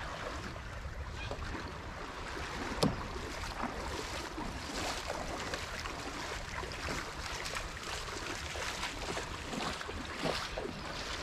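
Outdoor ambience of light wind with small water splashes and lapping at the shallows, broken by a single brief knock about three seconds in.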